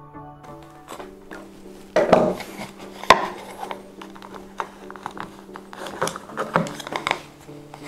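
Handling noise from a plastic-sheathed power cord being forced through a tight hole in a printed plastic lamp base: irregular scraping, rubbing and clicking of plastic on plastic, with a sharp click about three seconds in. Soft background music runs underneath.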